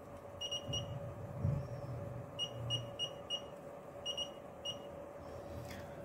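Short high-pitched beeps from a FeelTech FY6900 function generator as its rotary knob is turned. There are about ten in all: two near the start, then a quick run of five at about three a second, then three more.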